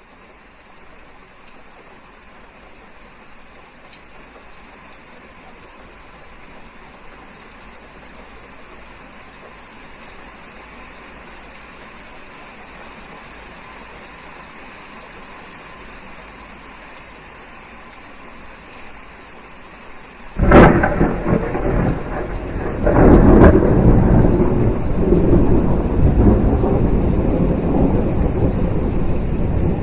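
Steady rain hiss that slowly builds, then about two-thirds in a sudden loud thunderclap, a second crack a couple of seconds later, and heavy thunder rumbling on under the rain.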